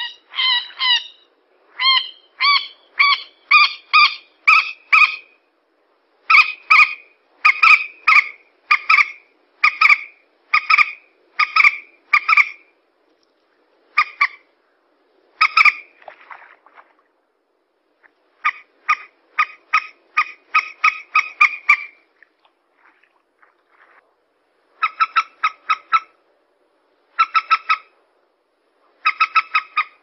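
Common moorhen calling: short, loud calls repeated about two a second in runs, with brief pauses between the runs and a quicker cluster of calls near the end.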